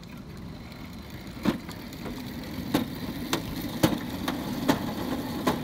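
A small ride-on go-kart setting off along a concrete sidewalk: its motor hums and grows louder as it picks up speed, and sharp knocks, first about a second apart and then about two a second, come from its small hard wheels crossing the pavement joints.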